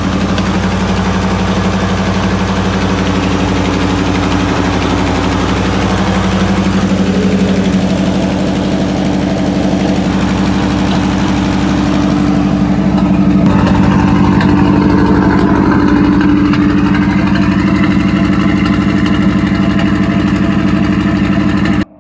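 A truck's V8 engine idling steadily on a newly fitted Edelbrock AVS2 carburetor, getting a little louder about halfway through.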